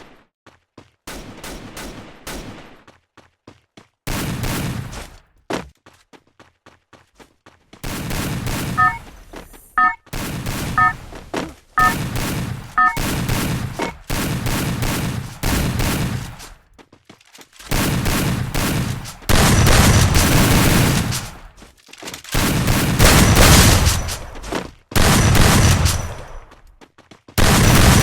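Video game gunfire: automatic weapon fire in repeated bursts, sparse and lighter at first, then long, loud sustained bursts through the second half.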